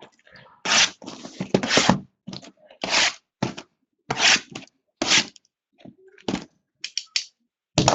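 Wrappers on basketball card boxes and packs being torn open by hand: an irregular run of short ripping and crinkling sounds, a dozen or more, with brief pauses between them.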